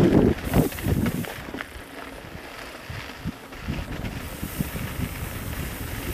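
Wind buffeting the microphone in uneven gusts, strongest about the first second, with a faint hiss.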